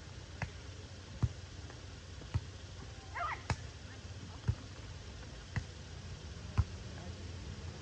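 A volleyball being struck by players' hands and forearms during a beach volleyball rally: a sharp smack about once a second, seven in all. There is a short warbling call about three seconds in.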